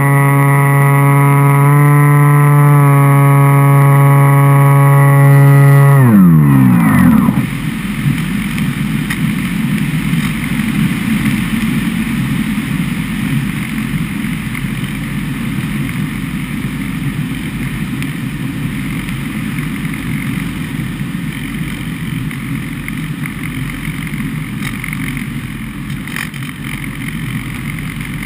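Turnigy L3010B-1300 brushless motor driving an APC 10x6 propeller on a foam flying wing, heard from a camera on board: a steady high motor whine that slides sharply down in pitch and dies away about six seconds in as the motor winds down. After that only rushing wind noise over the airframe and microphone is heard as the wing glides.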